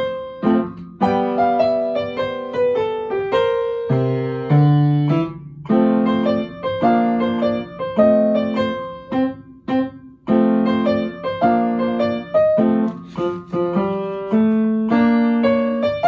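Upright piano playing a light swing piece at about 92 beats a minute, with right-hand melody over left-hand chords and bass notes in a steady lilting rhythm.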